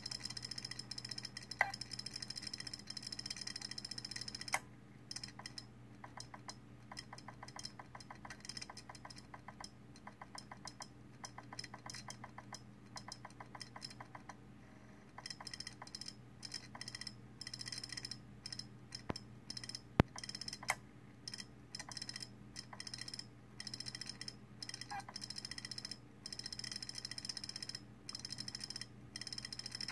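Failing 2.5-inch laptop hard drive in a docking station, its heads clicking and ticking in fast irregular runs over a steady high whine and low hum: the clicking of a drive that is failing. A few seconds in, a loud click cuts the whine for about ten seconds while the fast ticking goes on, then the whine returns with scattered clicks and a sharp louder click about two thirds of the way through.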